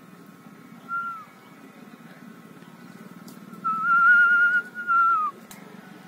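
A person whistling: a short falling whistle about a second in, then a longer wavering whistle held near one pitch that slides down at its end.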